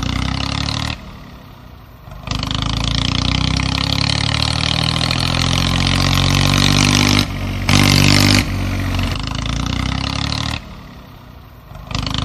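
Small motor and gearing of a homemade mini tractor running steadily as it pulls a ridger through sand, with a whirring hum and gear noise; the sound drops away sharply about a second in and again near the end, then comes back.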